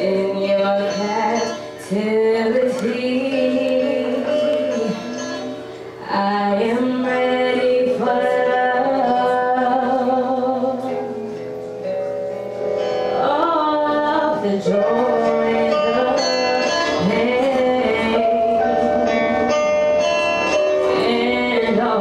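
A woman singing live: long held notes with wide vibrato and ornamented runs in which the recogniser catches no clear words, with short gaps for breath about 2 and 6 seconds in.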